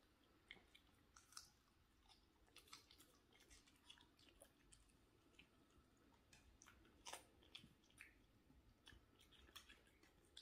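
Long-haired Chihuahua chewing raw cucumber: faint, irregular wet crunches and clicks of its teeth biting through the cucumber, a little louder about seven seconds in.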